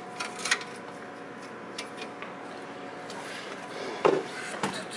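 Metal clicks and knocks as a bandsaw blade is worked by hand into the guides and onto the wheel of a horizontal metal-cutting bandsaw, with a louder knock about four seconds in, over a faint steady hum.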